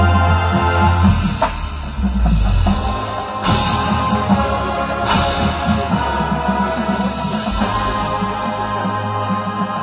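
High school marching band playing held brass chords over a drumline's steady beat. Two cymbal crashes come about three and a half and five seconds in.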